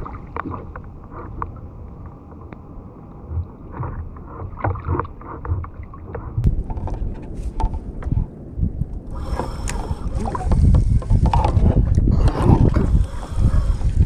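Water lapping and sloshing against a fishing kayak's hull, with scattered small knocks and clicks of gear on board. About nine seconds in it gets louder and rougher, with a gusty rumble.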